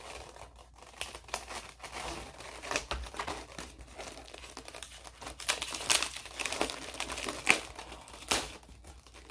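Packaging crinkling and rustling as it is handled: irregular crackles throughout, with sharper, louder crackles in the second half.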